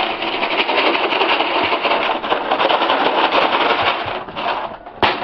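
Animals making a loud, continuous noise all at once, a dense chorus that eases off about four seconds in, with a short loud burst near the end.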